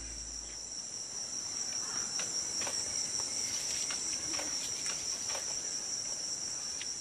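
Rainforest insect chorus: a steady, high-pitched buzzing in two pitches, with a few faint, short ticks and rustles through the middle.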